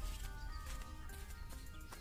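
Quiet background music with short melodic notes, over a low rumble.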